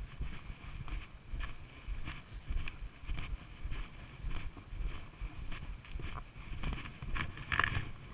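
Footsteps of a person walking on a tarmac lane, a step about every half second, over a low wind rumble on the microphone.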